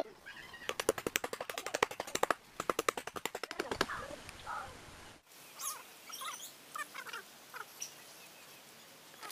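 Birds calling: a rapid rattling run of short repeated notes for about three seconds, then scattered short chirps.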